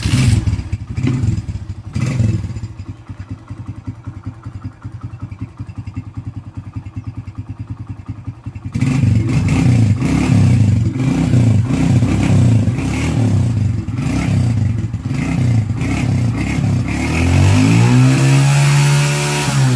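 Suzuki Fiero's single-cylinder four-stroke engine on its stock exhaust, idling with a couple of brief throttle blips. From about nine seconds in it gets louder and is revved up and down over and over. Near the end a longer rev rises, holds and drops.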